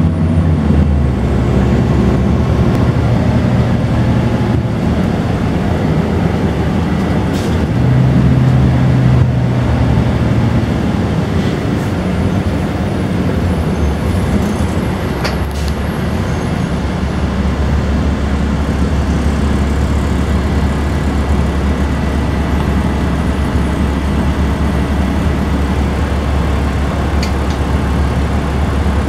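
Cummins M11E inline-six diesel engine of a 1998 Gillig Phantom transit bus, heard from inside the passenger cabin as the bus drives: a steady low drone, with a stronger engine tone swelling about eight seconds in. A few faint clicks and rattles sound over it.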